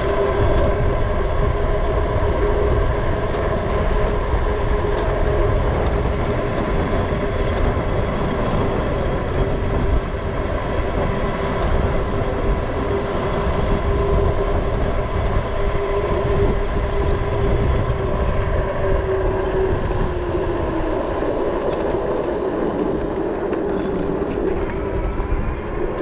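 Super73 S2 electric motorbike under way: the electric motor's steady whine over heavy wind rumble on the microphone. The whine falls in pitch about twenty seconds in as the bike slows, then rises again near the end as it speeds up.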